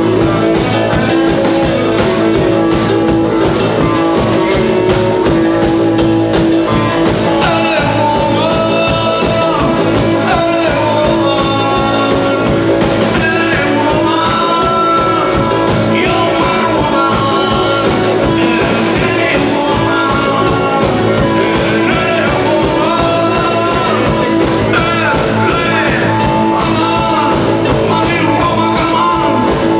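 Rock band playing live, with singing and guitar over held low notes.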